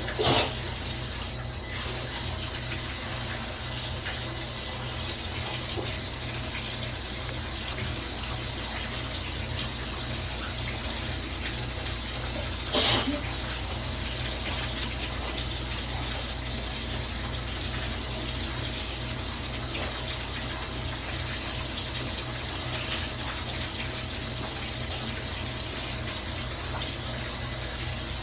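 Bath tap running steadily into a bathtub. Two short, loud sneezes break through it, one right at the start and one about halfway through.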